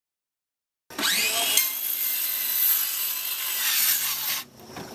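Cordless power saw cutting an oar board to length. It starts with a rising whine about a second in, runs loudly through the wood, and drops off briefly about four and a half seconds in.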